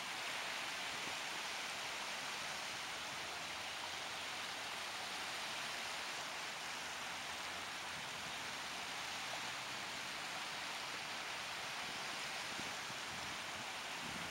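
Steady, even hiss of noise with no pitch or rhythm, holding one level throughout.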